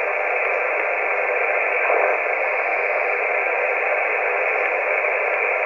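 CB radio receiver on the 11-metre band giving a steady, loud static hiss through its speaker, narrow and telephone-like, on an open channel with no voice.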